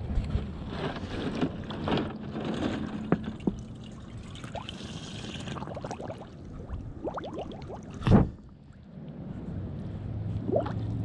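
Shallow water splashing and gurgling as a plastic milk-jug trap is pushed down into it by hand, with many small splashes and one louder thump about eight seconds in.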